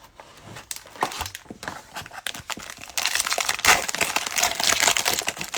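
Cellophane wrapper of a trading-card pack crinkling as it is torn open. A few light clicks and rustles come first, then a dense, loud crinkle from about three seconds in.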